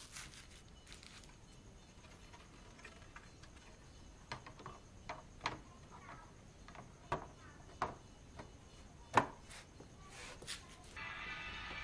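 Scattered sharp clicks and light knocks of hand work on the washing machine's parts, the loudest about nine seconds in. Background music comes in near the end.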